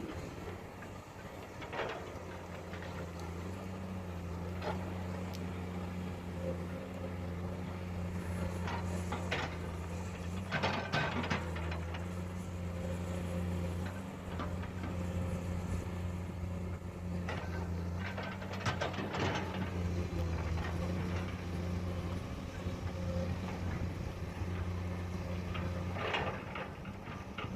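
Komatsu PC200 hydraulic excavator's diesel engine running steadily under working load, a low, even drone, with occasional short knocks and scrapes from the digging.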